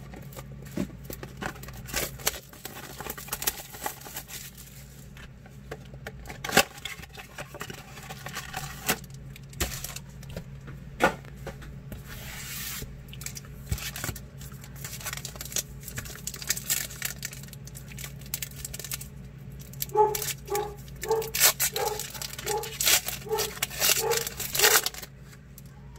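Trading-card pack wrappers crinkling and tearing with cards being handled, in scattered clicks and rustles. Over the last six seconds a dog barks repeatedly from downstairs, about two barks a second.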